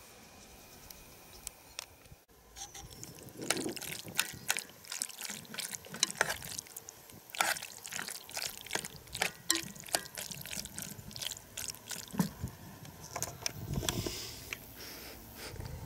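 Camp cooking: faint steady background, then from about two seconds in, irregular sharp clinks and scrapes of a utensil in a pot, mixed with wet, liquid sounds of food being stirred.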